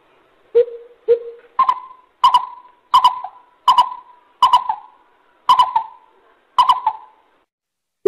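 Greater coucal (bubut) calling: a spaced series of about nine deep hooting notes. The first two are lower, and the rest come a step higher, each with a short echoing tail.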